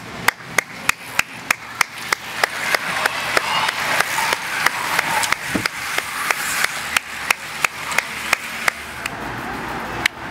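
A pack of racing road bicycles passes close by, a rush of tyre and freewheel noise that swells toward the middle and fades. Over it runs a steady, sharp knocking, about three times a second.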